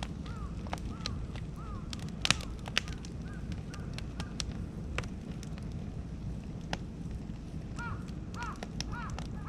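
Beech and oak wood fire crackling and popping, with two loud sharp pops between two and three seconds in. Birds call in quick series of short rising-and-falling notes at the start and again near the end.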